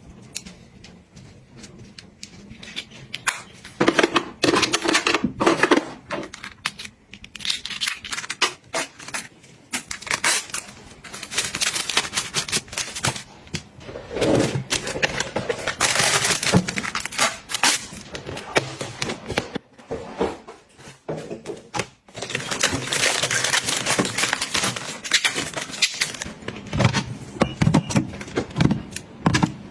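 Makeup items and their packaging being handled: a run of small clicks and taps, with longer stretches of crinkling and rustling.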